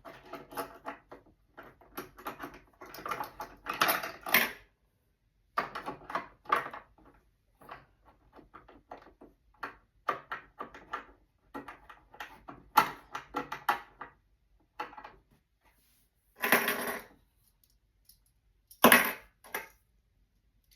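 Irregular clicks, taps and small metal rattles of a sewing machine's bobbin area being handled, with two louder short bursts of noise near the end.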